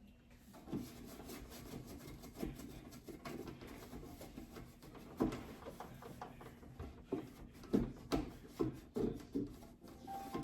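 Rubbing and scraping from wiping and scrubbing the inside of a refrigerator, broken by irregular light knocks and clunks of shelves and items being handled.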